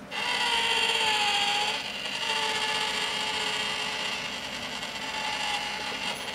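Small battery motor of a novelty cat-in-box coin bank whirring, starting suddenly and running steadily as the toy cat rises out of the box to grab the coin, with a brief dip in level about two seconds in.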